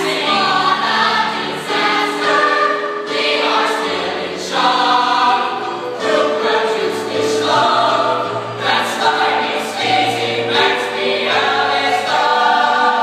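A youth chorus singing a musical-theatre number together in sung phrases of held notes, over a low accompaniment.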